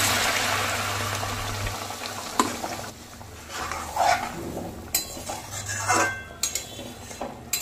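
Water poured into hot oil and spice paste in a metal kadai sizzles loudly, and the sizzle dies away over the first two or three seconds. Then a metal spatula stirs and scrapes in the pan, with a few sharp clinks against the metal.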